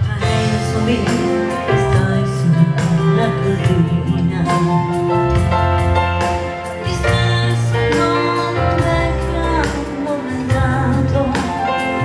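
Live band music: an electronic keyboard and an acoustic guitar playing with voices singing a melody.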